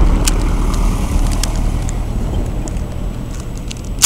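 A motor vehicle's engine running close by as it drives over the riverside field, its low rumble slowly fading away. Scattered light clicks of a Rubik's cube being turned sit on top.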